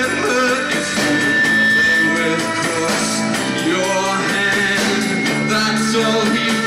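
Live rock band playing a song: electric guitars, bass, drums and violin, with a man singing.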